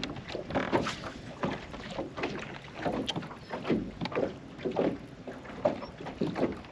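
Water slapping and lapping against the hull of a small fishing boat, in short irregular splashes several times a second.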